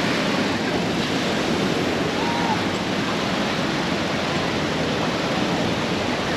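Steady wash of small ocean waves breaking along the shore, with faint chatter of beachgoers.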